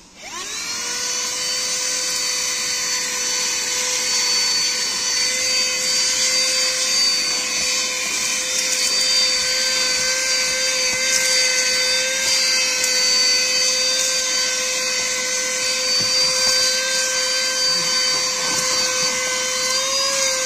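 A 12 V, 120 W corded handheld car vacuum cleaner switched on, its motor spinning up, then running steadily: a steady motor whine over the rush of air as it sucks dust off a rubber car floor mat.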